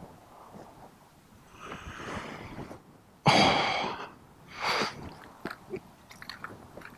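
A cold person's heavy breaths, the loudest a sudden sharp exhale about three seconds in and another shorter one a second later, followed by a few small clicks and taps.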